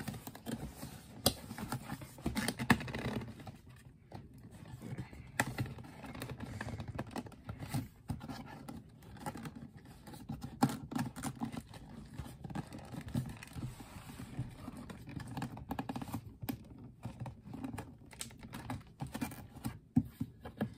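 Fingers tapping, scratching and prying at the slots of a cardboard shoe box lid, trying to get a hard-to-open box open. The sound is a run of light, irregular clicks and taps.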